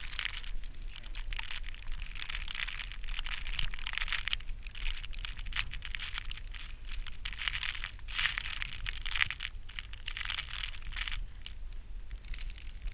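Footsteps crunching through snow, an irregular, steady crunching with no speech.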